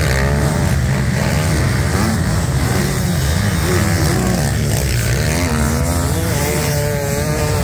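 Several motocross bikes racing over sand, their engines revving up and down and overlapping as riders take a jump and accelerate away. Underneath runs a steady low rumble.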